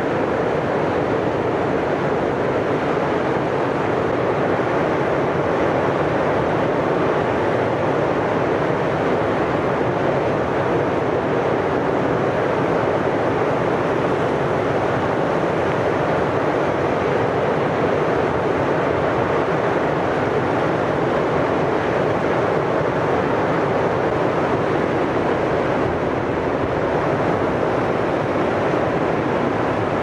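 Mountain river in high water rushing over rapids: a loud, steady rush of whitewater.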